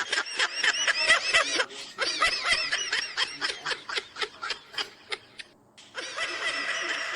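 Laughter sound effect: a high-pitched, rapid snickering laugh in quick pulses, several a second. It breaks off about five and a half seconds in, and another high-pitched laughing voice starts near the end.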